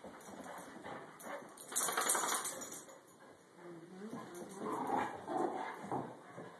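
Two dogs, a big one and a small puppy, play-fighting: a loud scuffle about two seconds in, then wavering play-growls and whines in the second half.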